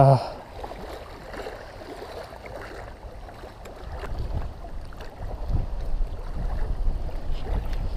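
Strong wind buffeting the microphone: a low, gusty rumble that grows louder about halfway through.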